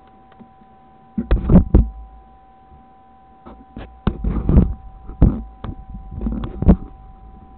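Close knocks and thumps on the dashcam's body, in four clusters, with a faint steady high tone underneath.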